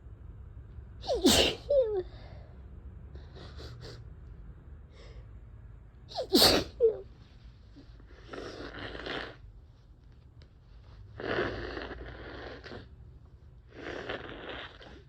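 A person with a head cold sneezing twice, about a second in and about six seconds in, each a sharp loud burst with a short voiced tail. Then three nose blows, each a noisy blast of about a second.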